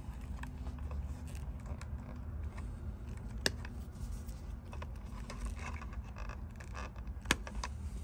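Light clicks and rattles of wires and insulated spade connectors being handled inside a belt sander's plastic switch box, with two sharper clicks, one about three and a half seconds in and one near the end, over a steady low background rumble.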